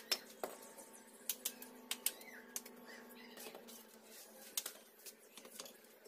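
Bricklaying: a steel trowel and fired clay bricks knocking and clinking, a dozen or so sharp, irregular taps, over a faint steady hum that fades out about halfway.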